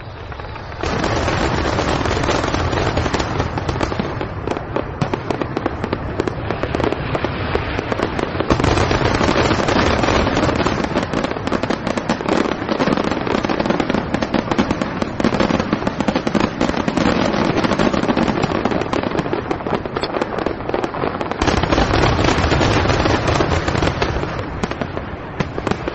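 A dense barrage of fireworks going off on a building's roof: rapid bangs and crackling packed close together. It swells louder about a third of the way in and again near the end, then eases off at the close.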